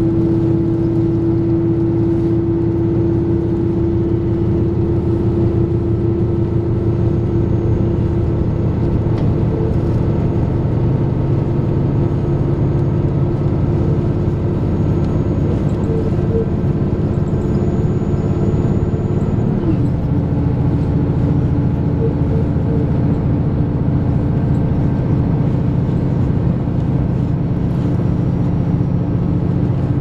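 Inside a KiHa 261 series diesel express railcar running at speed: a steady diesel engine hum over the rumble of wheels on rail. About twenty seconds in the engine note steps down in pitch.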